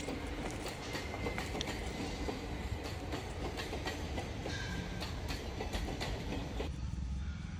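Low, steady rumble of a train moving away, with a few faint clicks.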